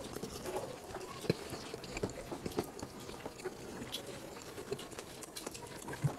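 Close-up eating sounds: chewing and wet mouth smacking, with scattered small irregular clicks and taps as hands work chicken curry and rice on the plates.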